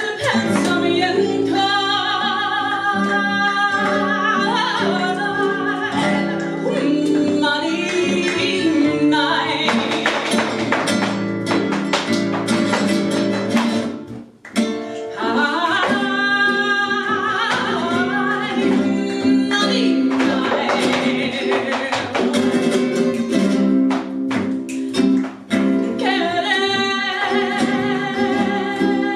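Flamenco caña played live: a woman sings long, ornamented cante phrases over flamenco guitars, with sharp percussive hits from clapping and percussion. The singing drops out for a stretch in the middle, where the guitars and percussion carry on, and comes back twice.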